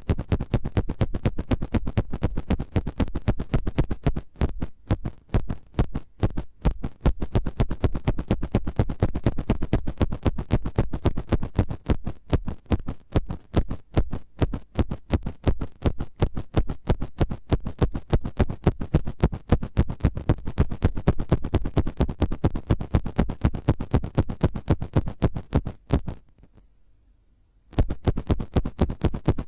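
ASMR scratching trigger: quick, rapid scratching strokes close to the microphone, several a second, stopping for about a second and a half near the end and then starting again.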